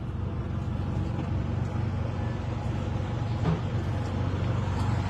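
Steady low engine drone, with a faint knock about three and a half seconds in.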